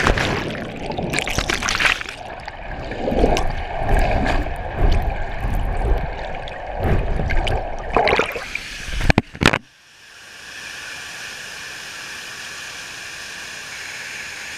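Water rushing and sloshing around the camera during a water-slide ride, with repeated knocks and bumps. About nine and a half seconds in it cuts off suddenly, leaving a steady, quieter hiss.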